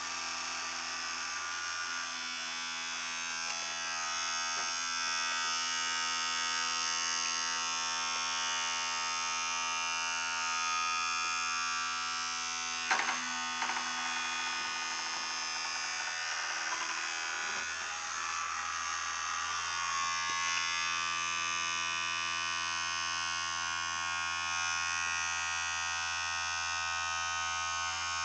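Vibrating-toothbrush motor buzzing steadily inside a foil-tray boat afloat, run from a nearly flat 9-volt battery. A single sharp knock comes about halfway through.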